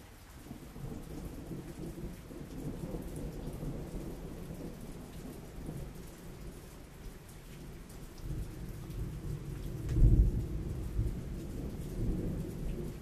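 Thunder rumbling over steady rain: the rumble builds within the first second, rolls on, and peaks in its loudest boom about ten seconds in.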